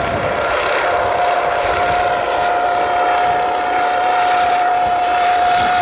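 A drone's propellers and motors in flight, making a steady whine that holds nearly one pitch over a broad rushing noise, while carrying a full payload.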